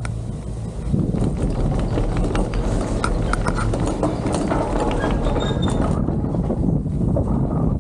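Gondola's haul rope and cabin grip rolling over a lift tower's sheave train: a rumbling clatter with many quick clicks, starting about a second in, the clicks thinning out after about six seconds.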